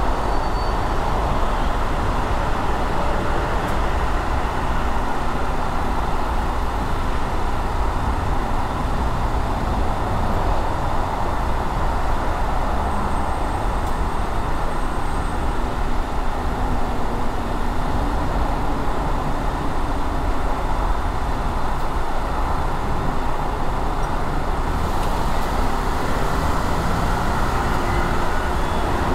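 Steady road and engine noise of a car being driven through city traffic, with a constant low rumble and tyre hiss.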